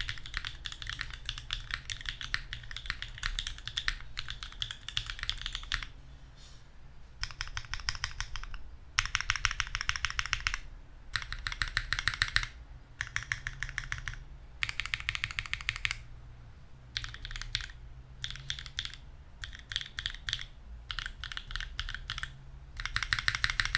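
Typing on a custom mechanical keyboard with lubed linear switches in a carbon fiber plate, no case foam, and GMK keycaps. A fast, continuous run of keystrokes for about six seconds, then short bursts of typing broken by brief pauses, with the loudest burst at the very end.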